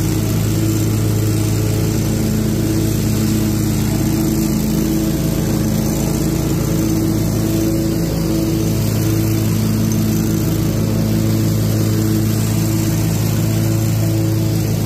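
Toro Proline 60-inch commercial mower and its blower attachment running steadily while mowing and blowing leaves into the collection bucket: a constant engine drone.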